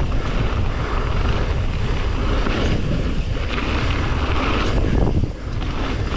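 Wind buffeting an action camera's microphone on a fast-moving mountain bike, with the tyres rolling over loose gravel, a steady rushing rumble that lulls briefly about five seconds in.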